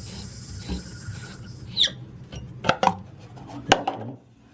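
Steady hiss of water running through a faulty toilet fill valve, with a short squeak and several clicks and knocks as the supply shutoff valve is turned; the hiss stops near the end as the water is shut off.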